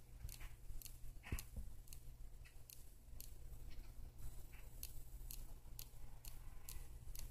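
Female Korean mantis (Tenodera angustipennis) chewing insect jelly, its mandibles giving faint, irregular clicks, a couple a second. There is one duller knock about a second in.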